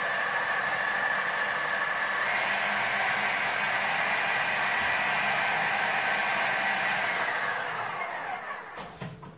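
Electric chopper's motor running steadily as it blends herring roe with mayonnaise and tahini into a sauce, then winding down over the last two seconds.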